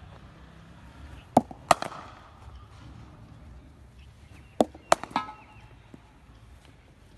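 Cricket ball and bat in net batting practice: two deliveries, each heard as a pair of sharp knocks about a third of a second apart, the second knock of each pair ringing briefly.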